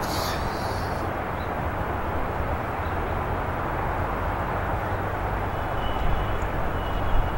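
Steady outdoor city background noise: an even, low rumble with a soft hiss above it, like distant urban traffic.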